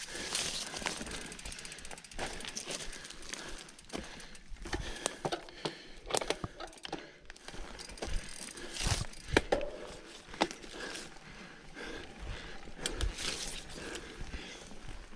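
Mountain bike being ridden over rough ground: tyre noise on the trail with irregular clicks and rattles from the bike's chain and drivetrain.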